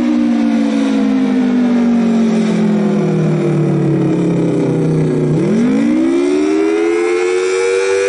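Federal Signal Thunderbolt 1000T dual-tone (4/5 port) outdoor warning siren sounding, its horn rotating. Its two-note chord slides down in pitch for about five seconds, then turns and winds back up quickly.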